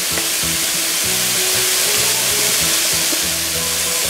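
Chicken liver, hearts and thigh meat sizzling steadily in oil on a tabletop hot plate, with background music of held low notes.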